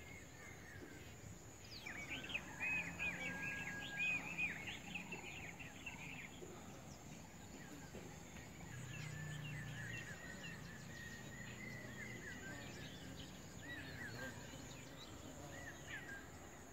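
Outdoor field ambience with small birds chirping in short, arched notes: a burst of chirps about two seconds in and a longer run of chirping in the second half. A faint steady high tone runs underneath.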